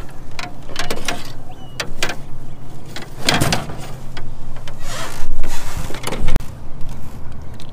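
Clattering knocks of a landing net's metal frame and a caught catfish against an aluminium boat hull, with two loud thuds a little after five seconds and around six seconds. A steady low hum runs underneath.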